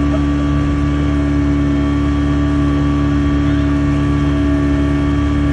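Speedboat outboard motor running at a constant pitch under load, towing a banana boat.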